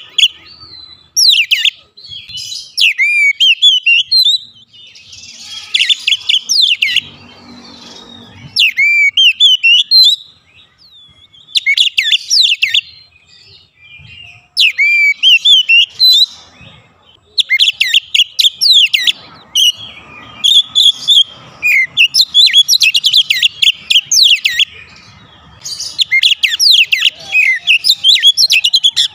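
Oriental magpie-robin singing loudly in bursts of varied whistled notes and fast trills, in phrases of one to three seconds with short pauses between them.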